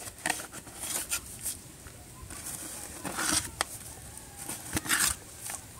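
A plastic measuring cup scraping and scooping dry wood ash in a plastic bucket, heard as a handful of short, scattered rustling scrapes.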